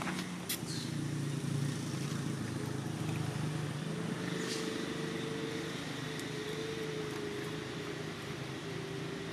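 A steady low mechanical hum, with a faint held higher tone joining about four seconds in and a couple of light clicks.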